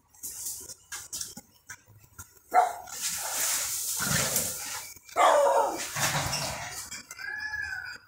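Two loud animal calls, about two and a half seconds apart, each starting sharply and lasting around a second.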